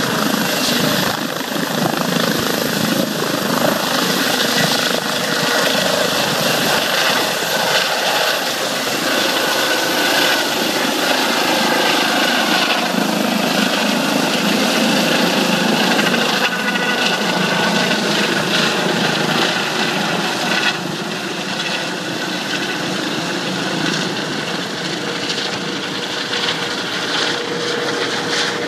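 Helicopter lifting off from a helipad and climbing away, its rotor and engine noise loud and steady, easing off slightly in the last several seconds as it leaves.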